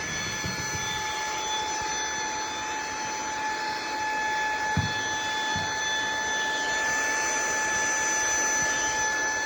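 Cordless handheld vacuum cleaner running steadily, its motor giving a high, even whine over a rush of air. Two light knocks come about halfway through.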